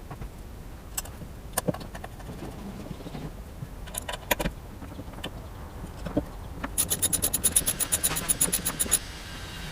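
Hand tools at work: scattered sharp clicks and light knocks, then from about seven seconds in a fast, even run of ratcheting clicks, about eight a second, lasting some two seconds.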